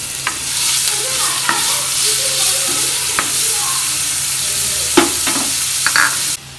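Chopped onions sizzling in hot oil in a non-stick kadai, stirred with a spatula that knocks against the pan a few times. The frying hiss cuts off suddenly near the end.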